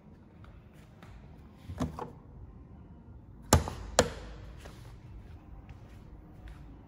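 Tailgate of a VW T6 California van being shut: a couple of light knocks, then two sharp bangs about half a second apart, the first the loudest.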